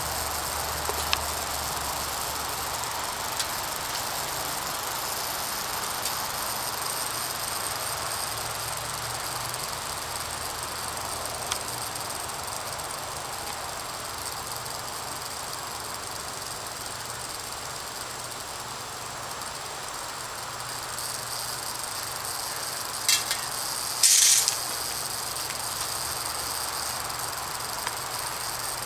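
Rattlesnake rattling its tail in a steady, unbroken high buzz. A couple of short, louder noises break in about three quarters of the way through.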